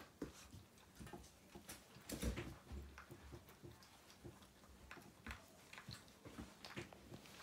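Puppy eating from a stainless steel bowl: faint, irregular clicks and crunches of food against the metal, with a louder knock about two seconds in.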